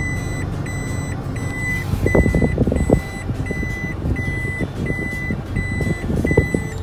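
A Toyota's reverse-gear warning beeper sounding in the cabin: one steady high beep repeating about one and a half times a second while the car backs up, over the engine idling. Short stretches of low rattling come about two seconds and five seconds in.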